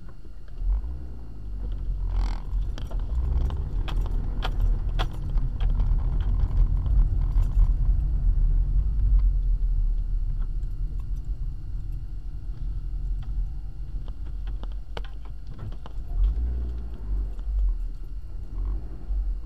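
Car interior noise while driving: low engine and road rumble that grows louder a few seconds in and then eases, with frequent small rattles and clicks from inside the cabin.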